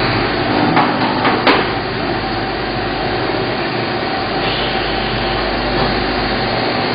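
Steady machine-shop noise with a constant hum, broken by three sharp knocks about a second in.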